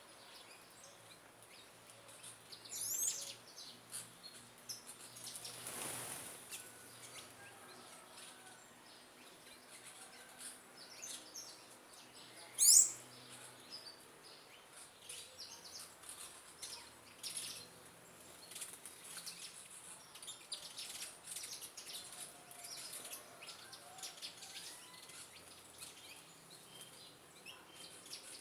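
Small birds chirping and calling, with many short high chirps throughout. One sharp high call stands out near the start, and a much louder one comes about halfway through.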